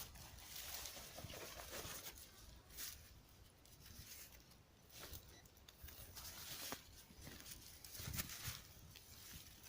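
Faint, irregular rustling and crunching of forest-floor litter and soil, from steps or digging, with no detector tone.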